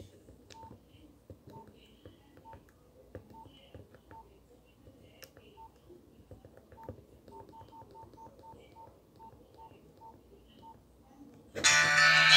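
Nokia 100 mobile phone keypad: a string of short key beeps, all at one pitch, spaced irregularly and coming in a quicker run about seven to nine seconds in, with faint button clicks. Near the end a ringtone starts playing loudly from the phone.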